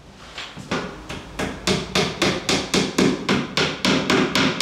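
A hammer striking in quick, even blows, about four a second, some sixteen in a row. The first few are lighter and the rest are strong.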